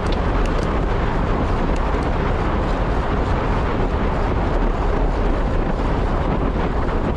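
Wind rushing over the microphone while riding at speed: a loud, steady roar heavy in the lows, with a few faint ticks near the start.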